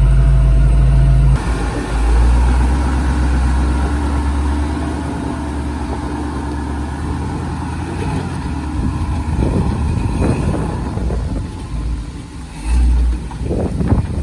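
Toyota pickup truck's engine running and revving. The sound changes abruptly about a second in and turns rougher and choppier near the end.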